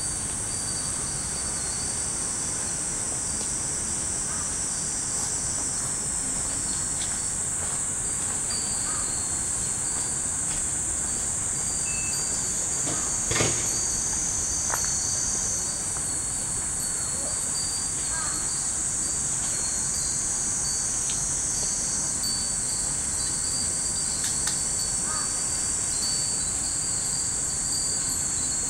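A steady, shrill chorus of summer cicadas in the trees, with fūrin wind chimes ringing faintly now and then as the breeze swings their paper strips. There is a single sharp click about halfway through.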